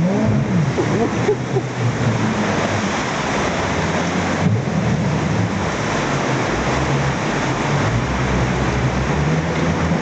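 Loud, steady rush of water from the Moconá falls and rapids on the flooded Uruguay River, heard from a motorboat, with the low drone of the boat's engine underneath, shifting slightly in pitch.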